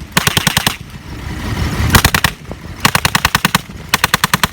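Replica Browning machine gun, a dummy that makes its noise through a gas and ignition system and fires no rounds, firing four bursts of rapid reports at about a dozen a second. The last burst is the longest and runs on past the end.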